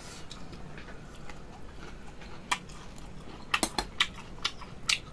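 A person chewing a mouthful while a metal spoon clicks and scrapes against the dish, with several sharp clicks in the second half.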